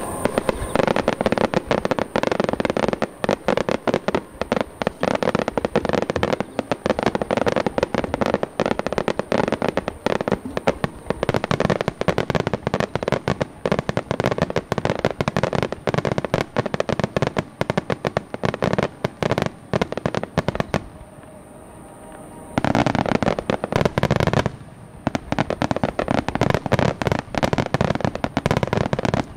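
Dense fireworks barrage: many aerial shells bursting in quick succession, overlapping bangs and crackle. The bursts thin out for about a second and a half late on, then start again just as thick.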